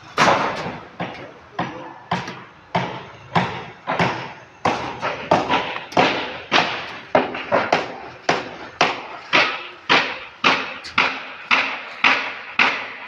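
Steady hammer blows, about two a second, each a sharp knock that dies away quickly: hammering on a building site.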